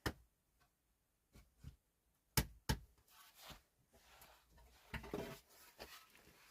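A few sharp knocks, the loudest two close together in the middle, then a stretch of rustling and scraping, as of things being handled.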